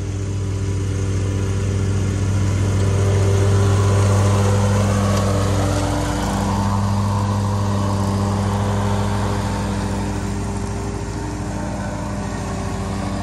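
Ferris stand-on commercial mower's engine running steadily while mowing, growing louder as it approaches, loudest about four seconds in, then easing slightly toward the end as it passes.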